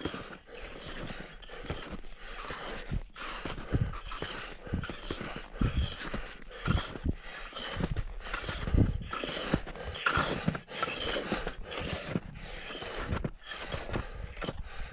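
A person panting hard in a steady rhythm, with regular steps about twice a second, as of a climber on an uphill ascent.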